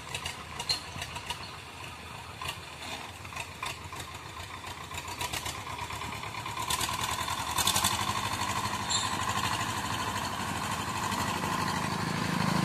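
Swaraj tractor's diesel engine running steadily, getting louder about two-thirds of the way through.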